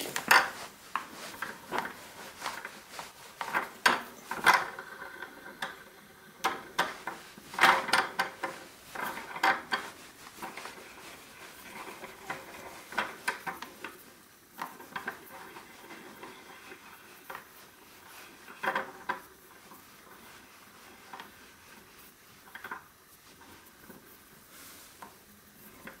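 Bottom bracket bearing press being unwound and taken off the frame: irregular metal clinks, rattles and scraping of the press's threaded rod and adapters, busier in the first half.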